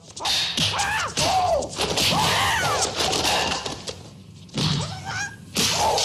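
Martial-arts film fight sound: wooden staff and sticks whooshing and cracking against bodies, in quick sharp hits, mixed with short shouted battle cries that glide up and down in pitch.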